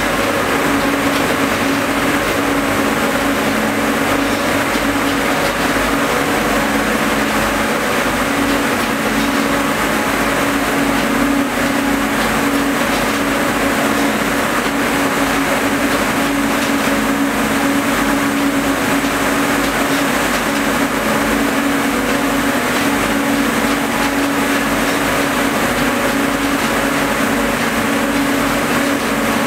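LMW LR60 ring spinning frames fitted with H-Fang compact spinning attachments, running in production: a loud, steady whir of spindles and drafting rollers over a constant hum, with no change in pace.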